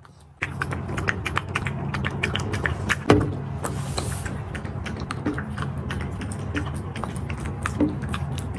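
Toy poodles lapping and licking at ceramic bowls: a quick, irregular run of wet tongue clicks, with one louder knock about three seconds in, over a low steady hum.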